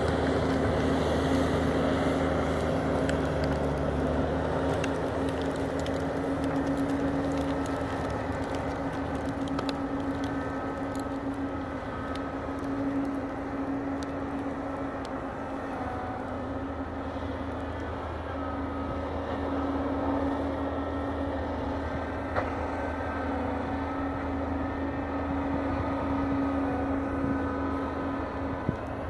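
Diesel engine of a Bobcat compact track loader running steadily under load while dragging logs with its rear grapple, a constant engine hum that eases slightly as the machine moves off.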